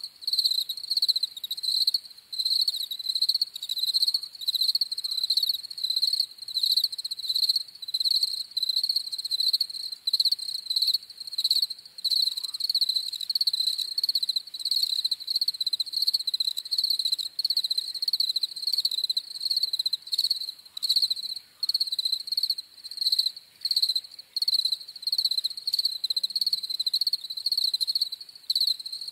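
European field crickets chirping, a high, quickly pulsing song repeated over and over without pause.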